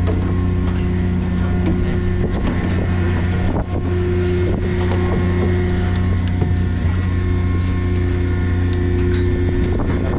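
Fishing boat's engine running steadily, a constant low drone with a few short knocks from work on deck.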